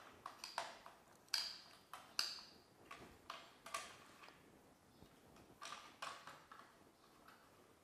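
Scattered light clicks and knocks of a Festool TS 55 R circular saw being fitted onto a CMS module panel, with the clamping jaws being tightened. The clicks come in a cluster over the first four seconds, then a pause, then a few more.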